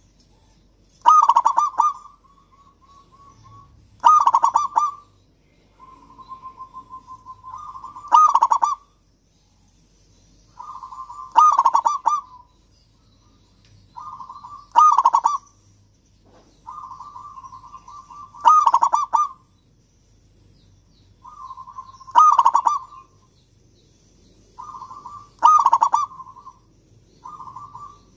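Zebra dove (perkutut) cooing its song about eight times, roughly every three and a half seconds. Each phrase is a run of soft, quick notes that ends in a loud burst of coos.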